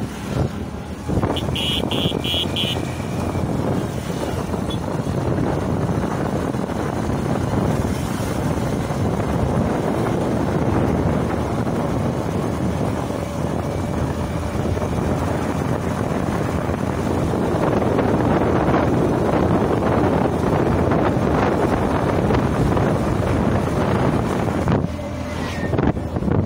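Wind buffeting the microphone, a loud, steady, rumbling noise. About two seconds in comes a quick run of five short high beeps.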